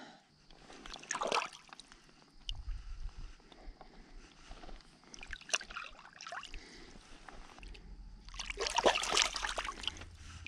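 Intermittent wet sloshing and trickling with small clicks and knocks as freshly skinned smallmouth bass fillets are handled, with a louder burst of handling near the end.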